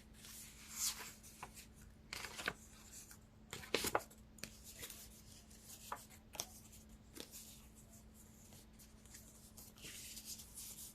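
Tarot cards being shuffled and handled: scattered soft papery swishes and taps, the strongest in the first four seconds, over a faint steady hum.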